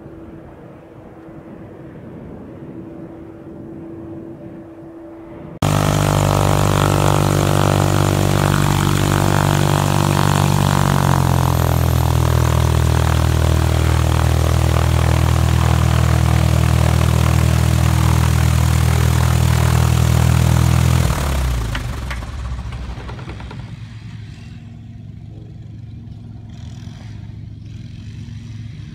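A jet airliner's engines idle with a faint steady whine as it taxis. They cut suddenly to a Diamond DA40 Diamond Star's single piston engine and propeller running loudly at close range, its pitch stepping down once as the revs drop. Near the end the engine goes quieter.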